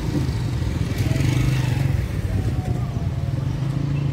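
Street traffic: a motor vehicle engine running close by, a steady low hum over general road noise.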